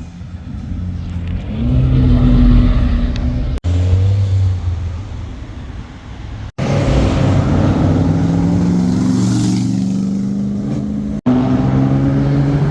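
Car engines revving and accelerating hard as cars pull away and pass, in several separate passes that each cut off abruptly.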